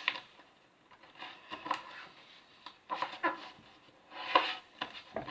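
A sheet of paper being folded and creased by hand, crinkling and rustling in several short bursts about a second apart.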